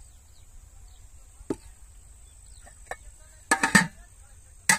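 A series of sharp knocks: one about a second and a half in, a fainter one near three seconds, a quick loud cluster about three and a half seconds in and another loud knock near the end.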